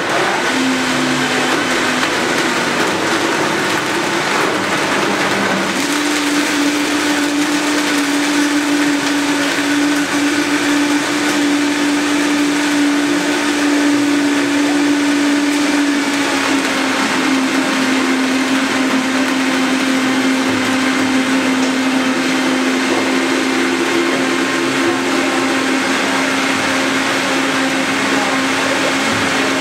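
Countertop blender running continuously, puréeing fresh mango and soaked dried mango into a thick filling. Its steady motor hum steps up in pitch about six seconds in, then dips slightly around sixteen seconds and holds.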